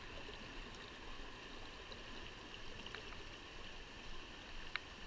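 Small brook trout stream flowing steadily, a soft even rush of water. A few short faint ticks come through about two and three seconds in and again near the end.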